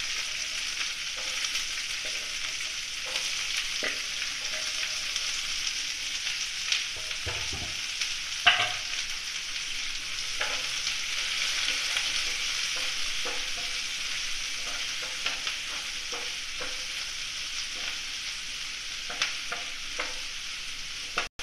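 Chopped onions sizzling steadily in hot oil in a nonstick frying pan as they sauté, stirred with a wooden spatula that scrapes and taps against the pan now and then, most sharply about eight seconds in.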